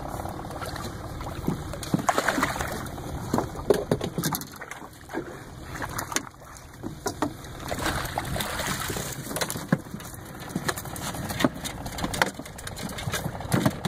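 Water sloshing and splashing beside a small fishing boat, with scattered knocks and handling clatter on the boat, as a hooked fish is played alongside and netted.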